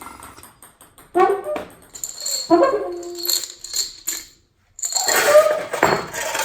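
Free-improvised trombone and percussion: short sliding trombone notes, with scattered metallic clinks, jingles and rattles. The sound drops out briefly about two-thirds of the way through.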